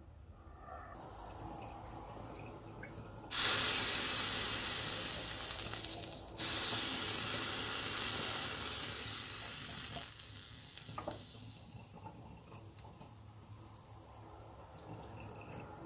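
Water running from a tap, switched on suddenly about three seconds in, changing abruptly about three seconds later, then easing off; a few faint knocks follow.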